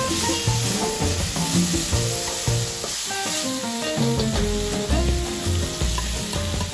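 Cuttlefish and prawns sizzling in hot oil in a wide enamelled paella pan, stirred with a slotted spatula. Background music with steady bass notes plays over the frying.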